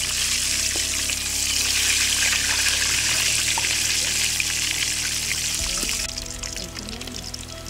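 Chicken pieces deep-frying in a pan of hot oil: a dense, steady sizzle that drops away suddenly about six seconds in. Background music with held low notes plays underneath.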